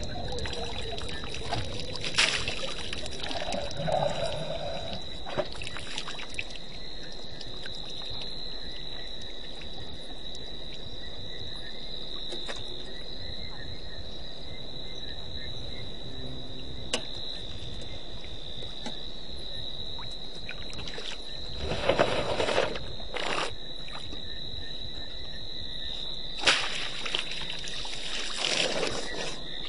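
African elephant drinking at a waterhole: water splashes and pours from its trunk in short bursts, twice louder near the end. A steady high-pitched insect trill runs underneath.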